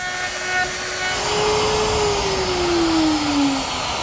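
Router with a straight cutting bit cutting out the waste between the fingers of a dovetail jig to form dovetail pins. The cutting noise picks up about a second in, and the motor's whine drops in pitch toward the end.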